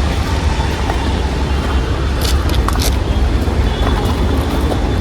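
Steady low rumble of road traffic, with a few short clicks between two and three seconds in.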